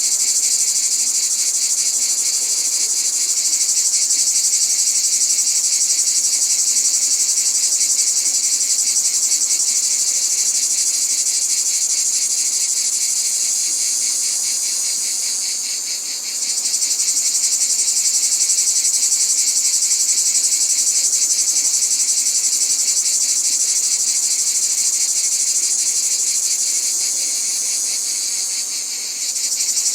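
Cicadas singing: a continuous shrill, pulsing buzz that sags slightly and swells back up about halfway through and again near the end.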